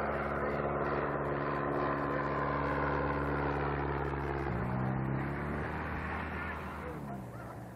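Piper Cub's engine and propeller running steadily as the plane flies low overhead. About four and a half seconds in the pitch steps up, then it falls and fades near the end as the plane passes by.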